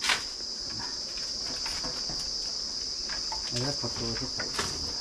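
Steady high-pitched insect chirring, a continuous drone. A sharp knock comes right at the start, with a few fainter clicks and a brief faint voice a little past halfway.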